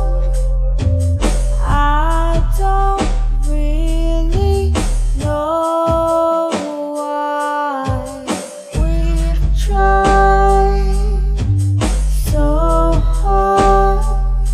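Music: a BandLab-produced song with a stepping melodic lead line, a regular drum beat and heavy bass. The bass drops out for about two seconds midway, then comes back in.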